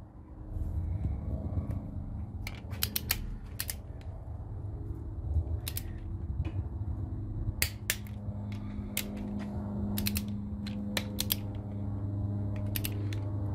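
Click-type torque wrench clicking while tightening connecting rod cap nuts to 45 foot-pounds on a second pass: sharp metallic clicks, singly and in quick groups of two or three, over a low steady hum.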